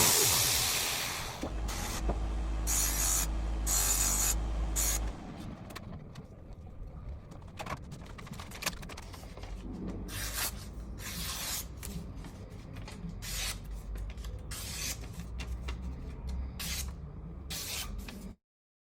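Belt grinder winding down as grinding stops, its motor hum falling in pitch over the first second or so; then a run of short, irregular scraping and rubbing strokes until the sound cuts off suddenly near the end.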